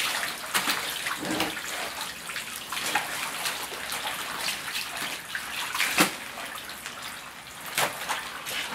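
Salted napa cabbage halves being rinsed by hand in plastic tubs of water: irregular splashing and sloshing as the heads are swished and lifted out, with a few sharper knocks, the loudest about six seconds in.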